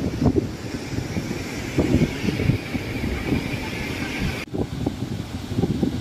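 Strong gusting wind buffeting the phone's microphone in uneven rumbling blasts, with a steady hiss through the middle; the sound drops out briefly about four and a half seconds in, then the buffeting resumes.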